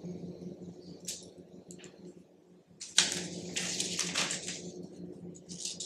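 Handling of a Victorinox CyberTool 34 multi-tool: scattered clicks, then a sharp snap about three seconds in, followed by a run of quick clicking and scraping, over a steady low hum.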